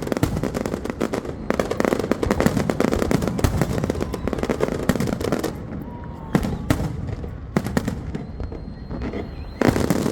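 Fireworks display: a dense, rapid run of crackling and popping bangs that thins out after about five seconds to scattered bangs, then a sudden loud burst of crackling near the end.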